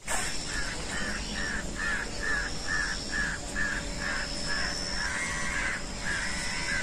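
A bird calling a short note over and over, about two or three times a second, with a faint steady high tone behind it.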